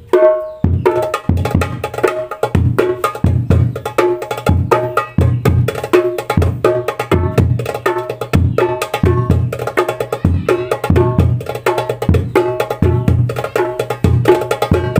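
Darbuka played by hand in a fast steady rhythm, deep bass strokes alternating with sharp ringing slaps, joined by a hadroh frame drum (tam).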